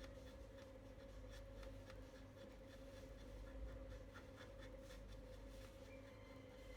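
Near silence: faint scattered small clicks and rubbing, like hands handling small objects, over a steady faint hum.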